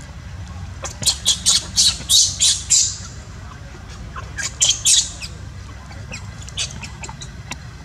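Newborn baby monkey screeching in short, high-pitched squeals: about seven in quick succession, then three more, then a few fainter ones. These are distress cries while another monkey grabs and pulls at it.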